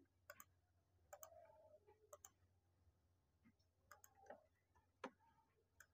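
Near silence with faint, scattered computer keyboard and mouse clicks, some in quick pairs.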